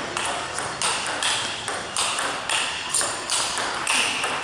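Table tennis rally: the celluloid ball clicks sharply off the rackets and the table in a quick, even back-and-forth rhythm, about two hits a second.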